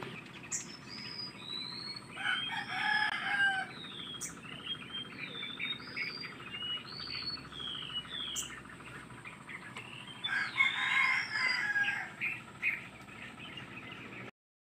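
Birds calling outdoors: two longer, louder calls, about two seconds in and again about ten seconds in, over many short, high chirps. The sound cuts off suddenly just before the end.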